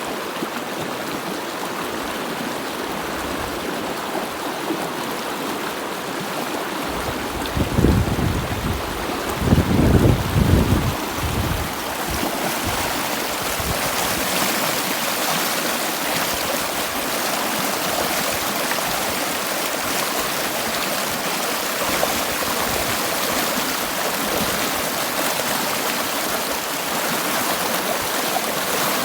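Running water flowing steadily, with a few louder low rumbles about a third of the way in.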